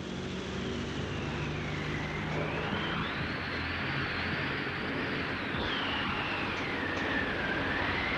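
Steady drone of aircraft engines, with a high whine over it that slowly rises and falls in pitch.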